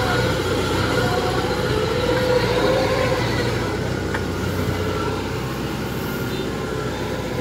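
Kubota DC-105X combine harvester's diesel engine running steadily under load as the machine drives on its crawler tracks down off a bund into the rice field. A whine sits over the engine for the first three seconds, and there is a single sharp click about four seconds in.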